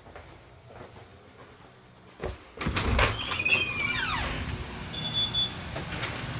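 An interior door is opened with a knock about two seconds in, after which the background turns louder and steadier, with a few high falling chirps.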